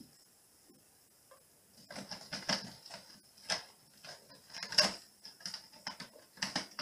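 A cat's claws scrabbling and clicking as it climbs a scratching post: irregular quick scratches and clicks that start about two seconds in, with the loudest near the middle.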